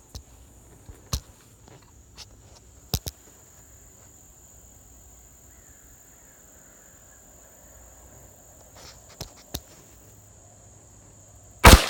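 A single AR-15 rifle shot about 11.7 s in, sharp and very loud, with an echo trailing after it. Before it there is a long wait with a steady high insect buzz and a few light clicks.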